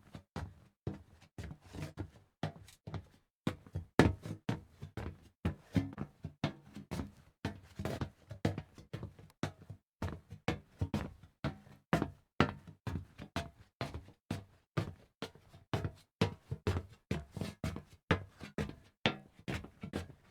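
Footsteps on hollow metal: a steady run of clanking steps, roughly two to three a second, each ringing briefly, with one louder step about four seconds in.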